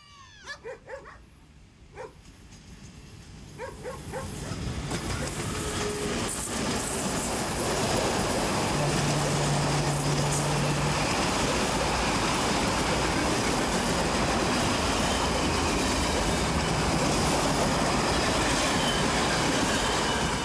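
A railway train passing: its noise builds over the first eight seconds or so, then holds loud and steady.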